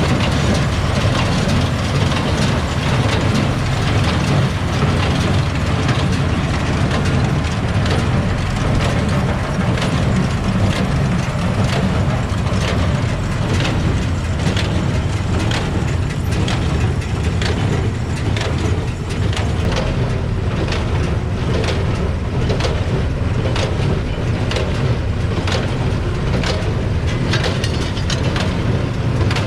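Tractor engine running steadily under load, with the regular knocking and clatter of haying machinery at about one and a half knocks a second.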